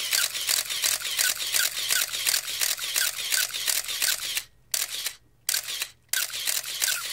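Camera shutter firing in rapid continuous bursts, about four to five clicks a second, breaking off briefly twice past the middle before starting again.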